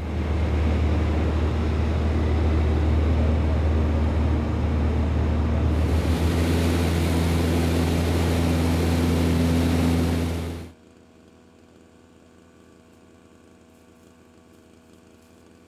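A vehicle's engine running steadily and loud, with a deep hum under a wide rushing noise, then cutting off suddenly a little past the middle, leaving only a faint background.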